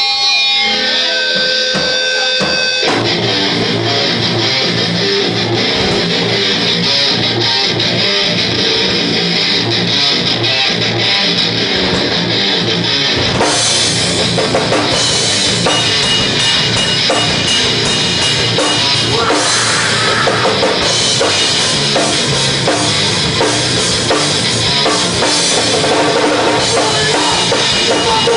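A rock band playing live on drum kit, electric bass and electric guitar. It opens with a few held notes, the full band comes in about three seconds in, and the cymbals get brighter about halfway through.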